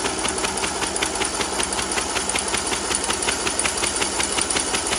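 Electric starter cranking the John Deere LA115's freshly rebuilt engine with its spark plug removed: it spins freely with a steady whirr and a quick, even ticking of about six beats a second, and stops right at the end. The cranking builds oil pressure and draws fuel into the carburetor before the first start.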